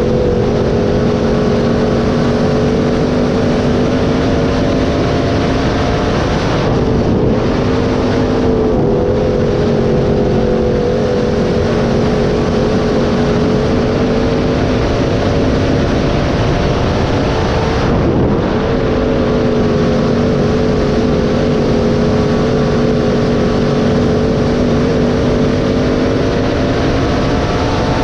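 Dirt-track sport mod race car's V8 engine running hard at high, steady revs during a race. Its note dips briefly about 7, 9 and 18 seconds in.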